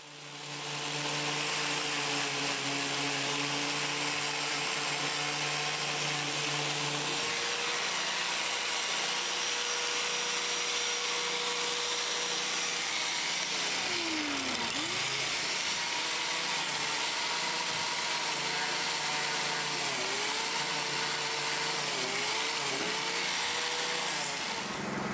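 Electric angle grinder running against the rusted steel wheel-arch of a 2007 Chevy Silverado's fender, grinding off rust. It spins up about a second in and runs steadily, its motor whine dipping in pitch a few times as it is pressed into the metal, around the middle and again near the end.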